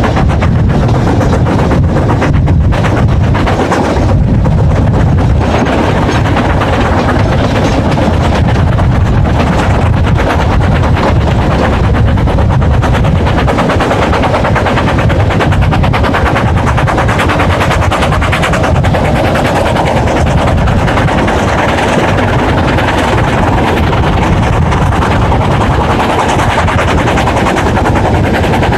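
Loud, steady rush of wind buffeting the microphone from a moving narrow-gauge steam train, with a dense crackle over the train's low running rumble.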